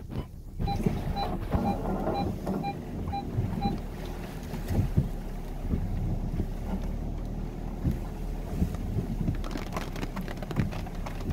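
Volkswagen Tiguan crawling over a rough, muddy forest track: a steady low engine and road drone with scattered knocks and thumps from the wheels and suspension over bumps, thickest near the end. For the first few seconds an electronic beep repeats about twice a second.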